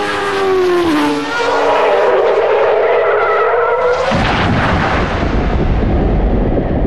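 Indy car engine at high revs dropping in pitch, giving way about a second in to a tyre-skid screech, then a heavy low rumble from about four seconds in as the car hits the wall.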